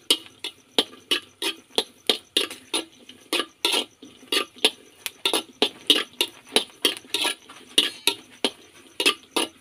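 Metal spoon scraping and clinking against a dry wok as fresh red chillies are stirred, about three strokes a second. The chillies are being dry-roasted with no oil and are nearly done.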